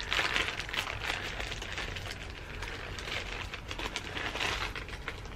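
Plastic accessory bag crinkling and rustling as it is opened and the small pins inside are handled, with scattered small clicks.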